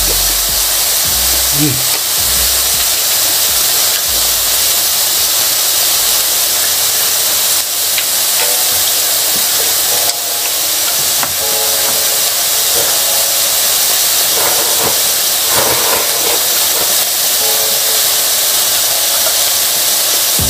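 Lamb chops sizzling on a hot ridged grill pan: a steady, loud hiss.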